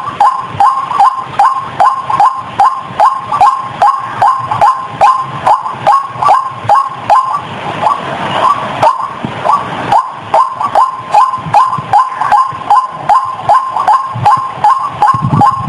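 White-breasted waterhen (ruak-ruak) lure call: a loud, sharp note repeated monotonously about two to three times a second, with a brief break around the middle.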